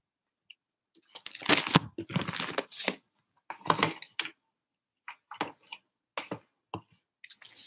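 Rustling and handling noises close to the microphone. A stretch of crinkling and scraping lasts about two seconds, then comes a shorter burst, then several brief scrapes and taps.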